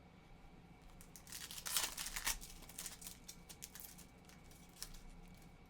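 A foil trading-card pack torn open: a burst of crinkling and tearing about a second and a half in, followed by light clicks and rustles of the cards being handled.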